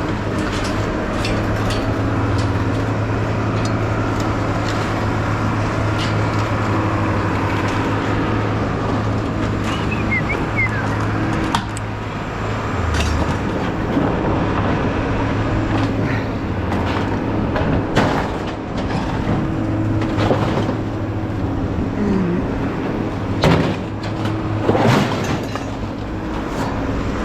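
A car driving: steady engine and road noise, with a few sharp knocks and rattles in the second half.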